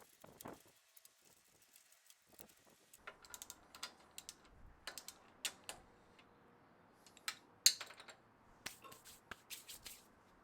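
Irregular light clicks and taps of hard objects being handled, with one sharper click about two-thirds of the way through.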